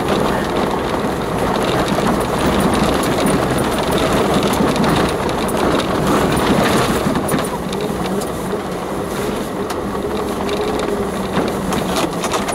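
4x4 driving slowly along a rough, unsurfaced green lane, heard from inside the cab. The engine runs steadily under tyre noise, and the bumpy track sets off frequent knocks and rattles. The noise eases a little about eight seconds in.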